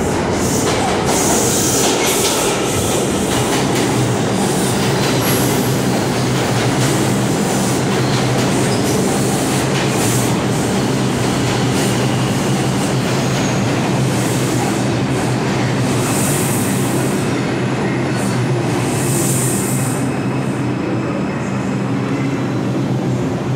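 An R142 subway train pulling into an underground station and slowing: steady loud running noise of wheels on rail with a low, even hum and several short bursts of high wheel squeal, which ease off near the end as it slows.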